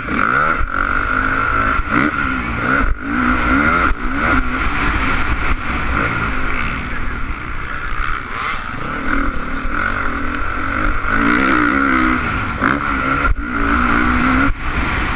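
Honda CRF450 single-cylinder four-stroke motocross engine revving up and down under hard throttle, with short breaks in the pitch as the throttle is chopped or a gear is shifted, heard from a helmet-mounted camera.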